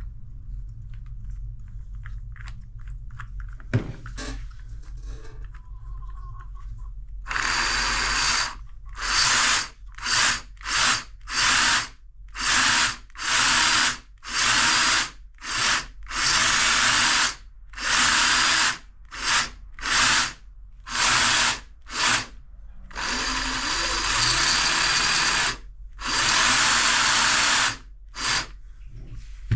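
Bosch GST 18V-LI cordless jigsaw's motor, its housing opened, triggered on and off about twenty times in a row during a bench test: some brief blips, some runs held a second or two, with small handling clicks before the first start.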